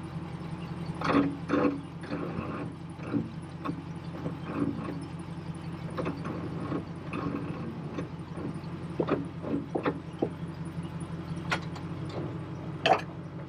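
Tow vehicle's engine idling with a steady low hum, with scattered metallic clicks and knocks over it, the loudest about a second in and near the end.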